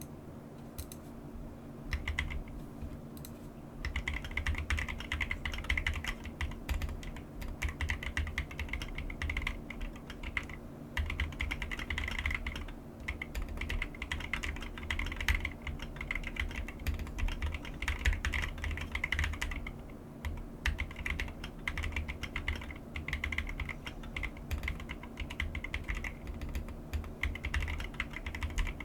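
Computer keyboard being typed on: a few scattered keystrokes at first, then fast, continuous runs of key clicks with a couple of brief pauses.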